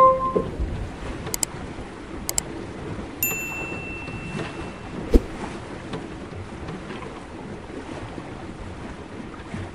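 Two clicks about a second apart, then a short bell-like ding: the sound effects of a subscribe-button animation. Underneath is steady wind and water noise from a yacht under way. There is a single sharp knock about five seconds in.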